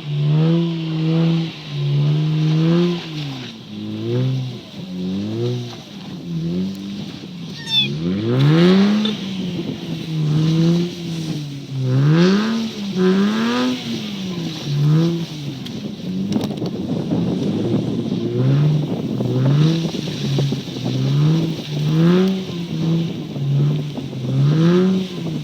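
Lexus IS200's straight-six engine revving up and down again and again while drifting, with tyre squeal on some of the peaks. In the second half the revs rise and fall about once a second.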